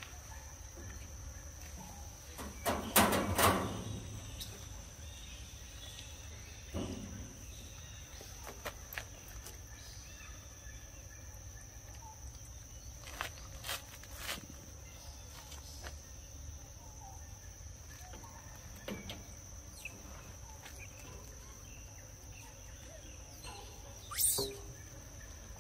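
Outdoor insect drone, one steady high tone, over a low background hum. A louder noise lasting about a second comes about three seconds in, a few sharp clicks come about halfway, and a brief loud sound comes near the end.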